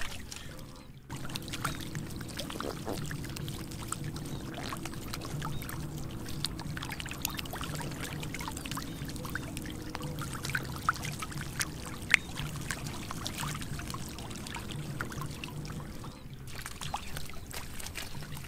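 Fish thrashing in shallow muddy water: many small, scattered wet splashes and slaps over a steady low hum.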